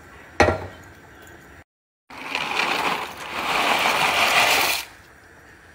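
A sharp knock near the start, then dry tricolour rotini pasta rattling out of a cardboard box into a pot for about three seconds.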